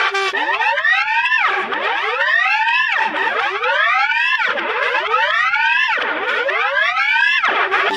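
An electronically processed tone with rich overtones repeatedly glides upward in pitch. It sweeps up five times, each rise lasting about a second and a half before snapping back low to start again.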